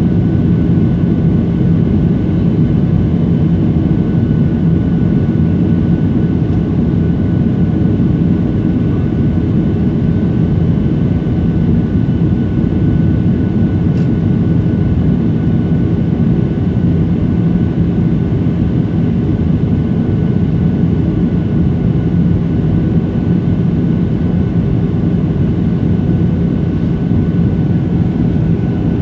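Steady jet airliner cabin noise on the landing approach: engine and airflow noise from a window seat beside the engine. A faint steady high whine rides over the low noise.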